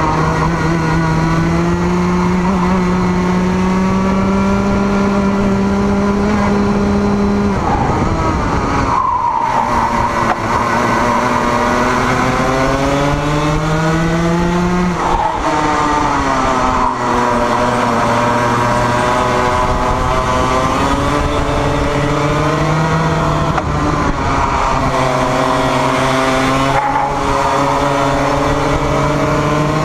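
Onboard sound of a racing kart's single-cylinder two-stroke engine at racing revs, the pitch climbing along the straights and dropping sharply as the driver lifts off and brakes for corners, about three times.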